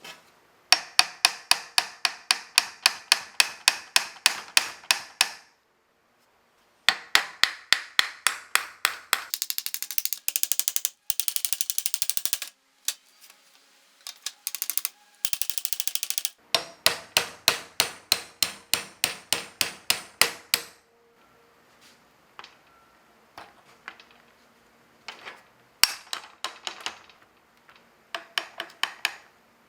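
Hammer striking metal in steady runs of about four blows a second, each blow ringing. A faster, brighter flurry of strikes comes in the middle, and the last third has only lighter, scattered taps.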